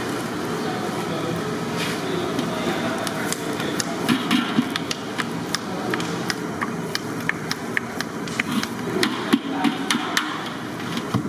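Irregular sharp knocks, two or three a second, over a steady background din; they start about three seconds in and stop shortly before the end.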